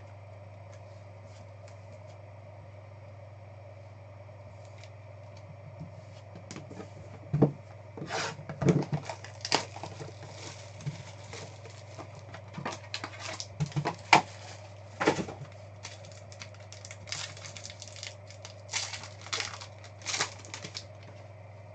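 Foil trading-card pack wrapper being torn open and crinkled by hand, with the cards handled inside: irregular bursts of sharp crackling and tearing from about six seconds in, over a steady low hum.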